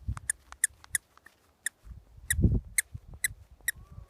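A dog's squeaky toy squeezed over and over, giving short, thin, high squeaks about twice a second from a weak, failing squeaker. About halfway through, a low rustle or thump, the loudest moment, passes under the squeaks.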